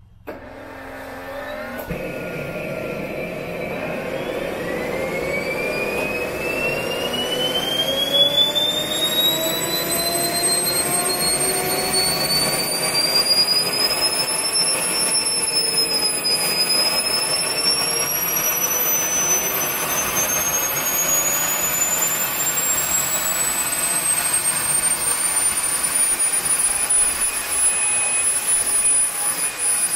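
Wren 54 model jet turbine starting up: it comes in abruptly and a whine climbs steadily in pitch for over twenty seconds as the engine spools up, levelling off near the end as it settles toward a stable idle.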